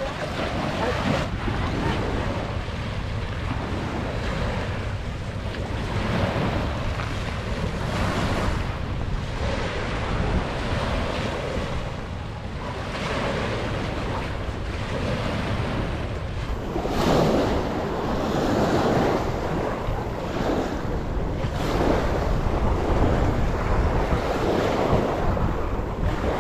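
Small waves washing onto a pebble beach, with wind buffeting the microphone in a steady low rumble.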